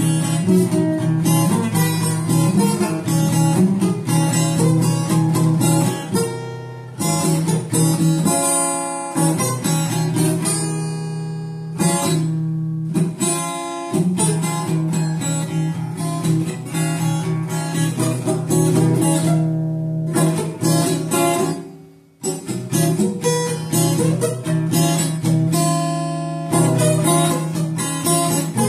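Acoustic guitar strummed fast and steadily, with a low note droning under the chords. The strumming breaks off briefly a few times, once letting a chord ring.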